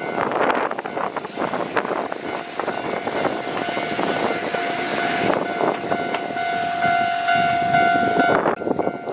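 Kintetsu 1440-series test-run train running past, its wheels clattering on the rails, with a steady tone held from about three seconds in; the sound cuts off abruptly near the end.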